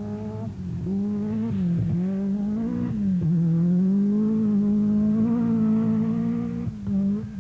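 Peugeot 205 Turbo 16 Group B rally car's turbocharged four-cylinder engine running at high revs flat out. The note dips briefly twice, about two and three seconds in, then holds high and steady before falling away near the end.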